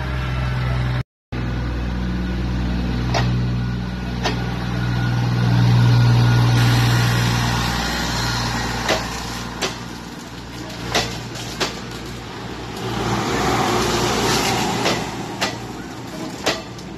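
Diesel passenger train's engine running with a low steady drone that swells about six seconds in, then fades as carriages roll past with pairs of sharp clicks from the wheels crossing rail joints.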